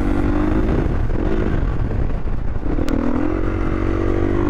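KTM EXC 450's single-cylinder four-stroke engine running open through an Akrapovič exhaust with the dB-killer removed, on the move. The engine note rises as it pulls, drops back, then rises again about three seconds in.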